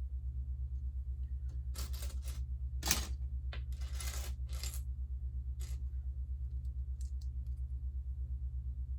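Loose plastic Lego pieces rattling and clinking as they are handled and sorted, in a few short bursts with one sharper click, then a few small clicks near the end. A steady low hum runs underneath.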